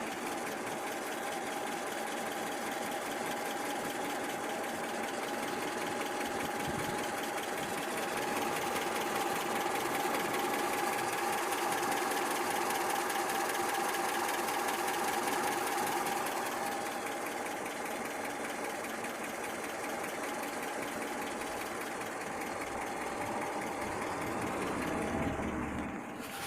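ZMZ-402 four-cylinder pushrod petrol engine idling cold at low speed, running with a steady, fast, even clatter.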